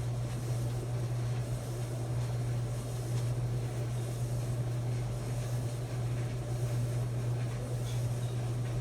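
Maytag clothes dryer running: a steady, unbroken low hum from the motor and turning drum.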